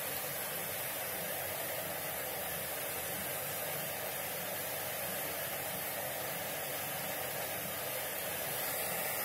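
Hot oil sizzling steadily as small drops of besan batter fry into boondi in a pan.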